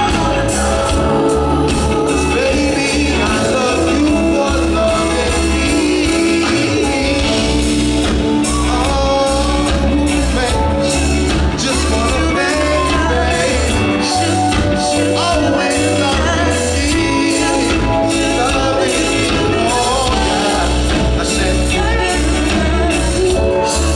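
Live band playing an R&B song, with bass, drums and singing or vocal runs over the top.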